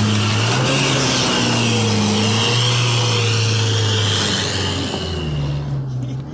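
Engine of a Zamyad pickup loaded with fuel cans running hard close by, its pitch wavering, then fading away about five seconds in.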